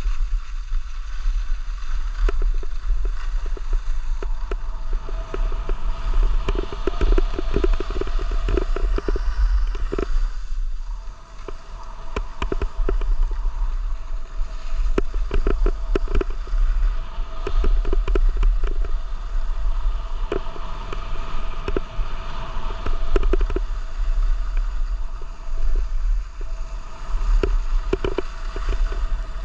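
Wind rumbling on the microphone of a camera carried while skiing downhill, with skis scraping over packed, groomed snow throughout.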